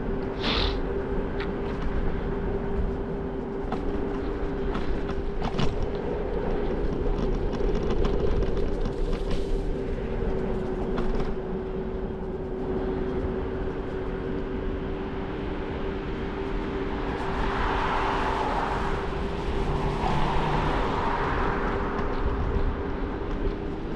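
Scooter riding along at a steady speed: a steady, even hum with scattered clicks and knocks from the ride, and a hiss that swells for a few seconds near the end.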